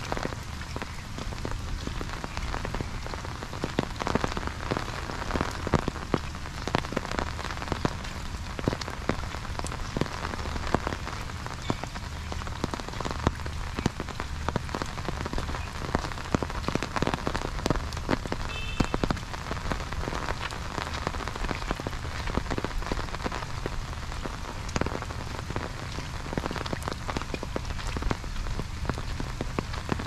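Steady rain falling, with raindrops pattering on an umbrella held overhead: a continuous hiss dotted with many sharp individual drop hits.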